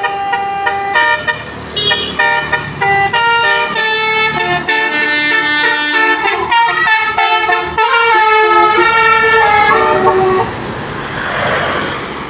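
Basuri musical vehicle horn playing a quick tune of changing notes for about ten seconds. Near the end there is the rush of the vehicle going past.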